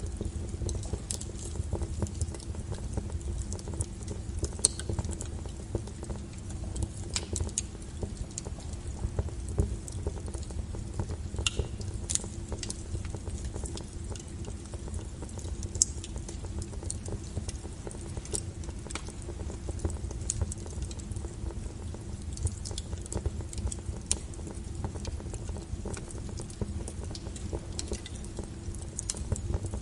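Wood fire burning, with a steady low rumble and irregular crackles and snaps from the burning firewood, a few of them sharper and louder.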